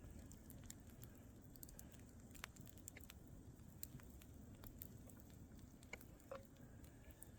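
Faint, scattered crackling and popping over a low rumble, from a campfire and chicken patties frying in a cast iron pan over it.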